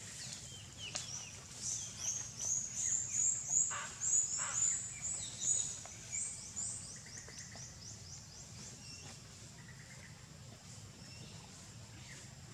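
Wild birds calling: a quick run of high, short chirps that thins out after several seconds, with two lower falling calls in the middle. A steady low background hum runs underneath.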